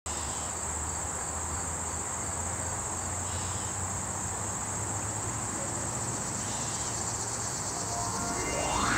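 Crickets chirping in a steady, continuous high trill. Near the end a rising whoosh sweeps upward as the music comes in.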